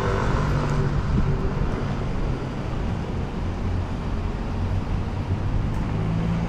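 Road traffic on a city street: a steady rumble of vehicle engines and tyres, with a low engine hum running under it.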